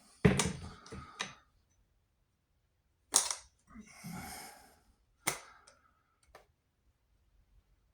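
Sharp clicks and knocks of crossbow parts being handled during disassembly: three separate clacks a few seconds apart, with a short rustle between the second and third.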